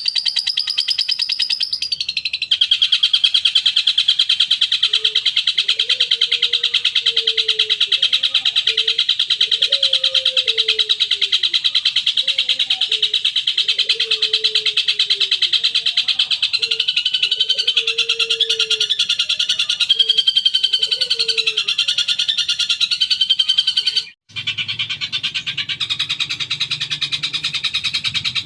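Recorded bird song played as a lure for long-tailed shrikes: a fast, continuous high buzzing trill, with lower warbling notes beneath it from about five seconds in. About 24 seconds in the recording cuts briefly and resumes with a similar trill over a low hum.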